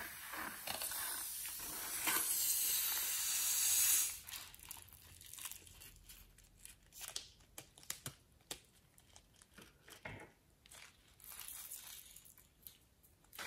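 A filled rubber balloon handled and rubbed, giving a rustling noise that grows louder for about four seconds and stops. Then come scattered small clicks and snips as scissors cut the balloon open and its contents are pressed out.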